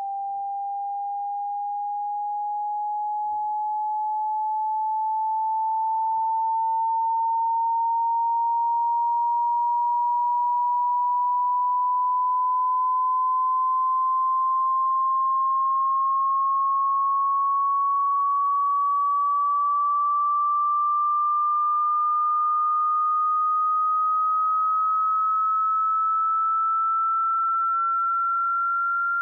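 Pure sine test tone of a hearing test, sweeping slowly and steadily upward in pitch.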